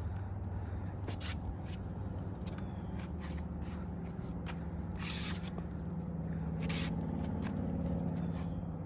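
Short hisses from aerosol spray-paint cans, the longest about five seconds in and another near seven seconds, over a steady low hum.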